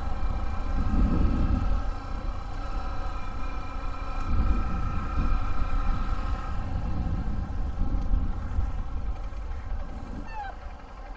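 Small motorcycle engine running at a steady low speed while the bike rolls along, with wind rumbling on the microphone. It gets quieter near the end.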